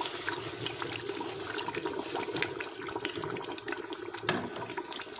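Kofta curry gravy bubbling in an open aluminium pressure-cooker pot, with a steady run of small crackles and pops. The liquid sloshes as the pot is shaken by its handles instead of being stirred, so the raw-mince koftas stay whole. One soft knock comes about four seconds in.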